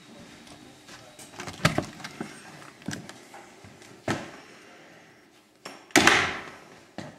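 A door being opened, with a few knocks and thuds as someone walks through into a small wooden room, then the door banging shut about six seconds in, the loudest sound, with a short ringing tail.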